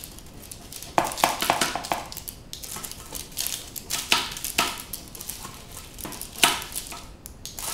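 Rolling pizza cutter slicing through a freshly baked pizza on baking paper: a series of sharp, crisp crunches at uneven intervals, with scraping as the wheel cuts through the crust.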